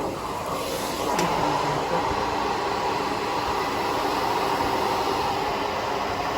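Carpet-cleaning machine running with a steady rushing whoosh of suction and airflow, with a faint click about a second in.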